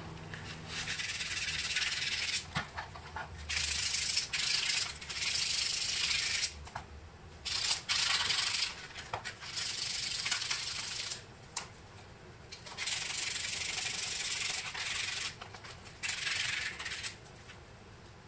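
P400 waterproof sandpaper rubbed by hand over a 3D-printed plastic skull part, a scratchy hiss in runs of quick strokes, each run a second or two long with short pauses between.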